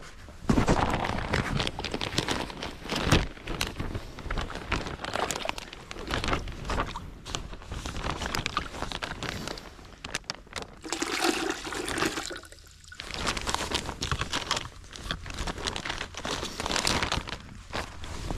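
Maple sap pouring from a plastic sap bag into a plastic bucket, with the bag crinkling and rustling as it is handled.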